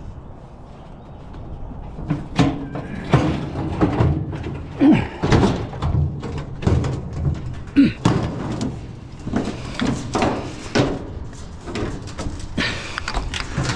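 Irregular knocks, thuds and clanks of heavy scrap being shifted and loaded by hand, with a couple of short scraping squeals.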